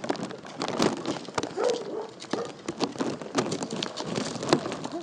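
A Bouvier des Flandres charging across grass at a decoy in a ring-sport face attack, heard as scattered short knocks and brief animal calls.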